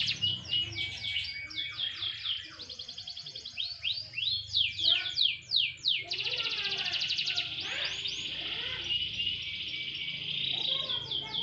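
Domestic canary singing: runs of quick, steeply falling notes, then a sustained fast trill through the second half, with falling notes returning near the end.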